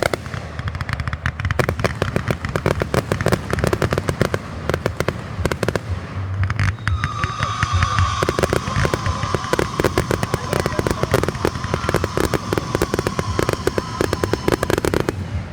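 Fireworks popping in rapid succession, a dense crackle of many small reports with no break. Partway through, a long firework whistle sounds for several seconds, slowly dropping in pitch.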